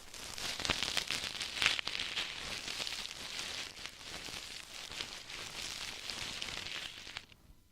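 Ear-cleaning tools scratching and rustling in an ear, a crackling hiss with scattered small clicks, which dies away near the end.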